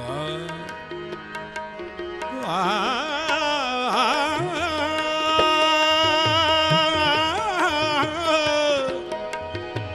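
Sikh kirtan: a male voice sings a wordless passage, winding through quick ornamented turns and then holding one long note, with light tabla strokes underneath.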